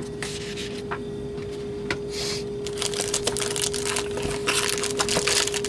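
Packaging being handled: paper and cardboard rustle with a few light taps. From about halfway in there is dense crinkling as the radio is lifted out of its box in a plastic bag. A steady hum runs underneath.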